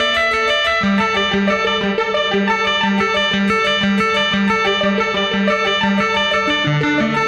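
Forbidden Planet 'Blue Pill' arpeggiator patch: synth notes repeating in a steady arpeggio over a bass note that pulses about twice a second. About six and a half seconds in, the bass drops to a lower note.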